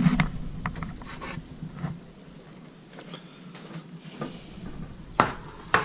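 Plate and utensils being handled and set down on a table: scattered clicks and knocks, with a louder knock at the start and two more near the end.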